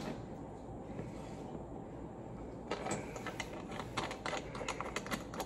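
Small irregular clicks and taps of a Glock pistol slide being handled and seated in a VISM rear-sight pusher tool. They start about halfway through, after quieter handling.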